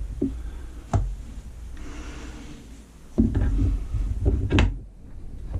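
Workbench handling sounds: a sharp click about a second in, then rubbing and shuffling of small objects, ending in a sharp knock near the end.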